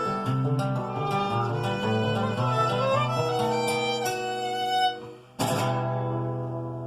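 Instrumental music: acoustic guitar picking under a violin melody. Just after a brief pause about five seconds in, a single chord is struck and left to ring, fading away.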